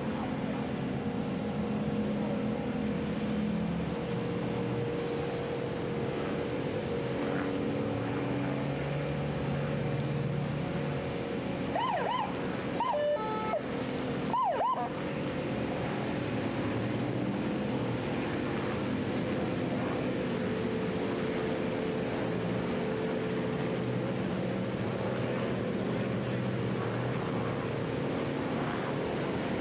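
Boat engines running steadily with water and wind noise. A few short rising-and-falling siren whoops come about halfway through.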